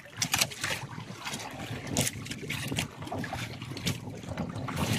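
Water lapping and slapping against a small boat's hull, with scattered irregular knocks and wind on the microphone.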